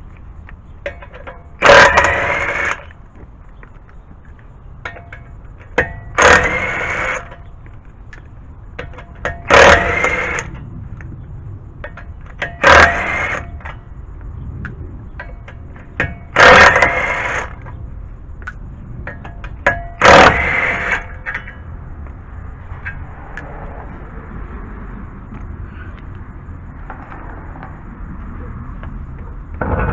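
Impact wrench spinning off the wheel's lug nuts in six short bursts a few seconds apart, each a whirring hammer that rises in pitch.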